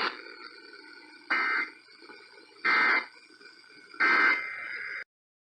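Emergency Alert System end-of-message data tones: three short buzzing bursts of the digital NNNN code, about a second and a half apart, signalling the end of the alert. Faint radio hiss lies between the bursts, and the audio cuts off abruptly after the third.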